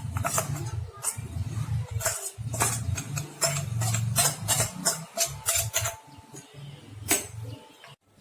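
Electric mixer grinder (mixie) grinding roasted coconut and spices with a little water into masala paste, run in short bursts with the contents clattering in the jar; it stops just before the end.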